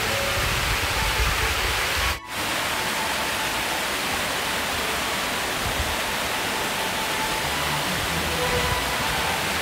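Fountain jets spraying and splashing into the basin, a steady rushing hiss of falling water, broken by a brief drop-out about two seconds in.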